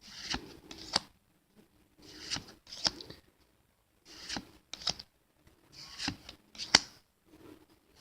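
Pokémon trading cards being flipped through one at a time: short swishes and crisp snaps of card sliding against card, in pairs about every one and a half to two seconds.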